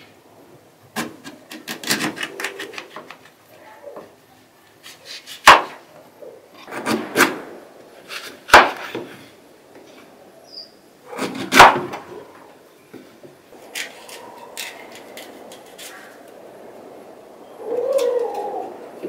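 Large kitchen knife cutting through firm raw quince with a crunching, rasping sound. The blade knocks sharply on a wooden cutting board every few seconds.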